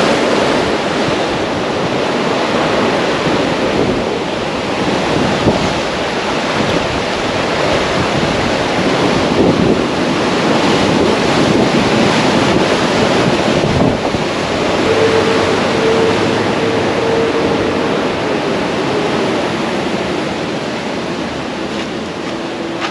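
Surf breaking on the shore with wind buffeting the microphone, a loud, steady rush of noise, in weather that seems to be a typhoon.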